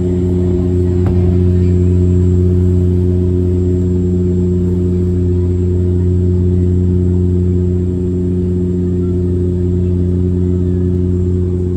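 Inside the cabin of a Porter Airlines De Havilland Dash 8 Q400 turboprop in flight: the steady low hum of the propellers and engines, with a faint high whine above it.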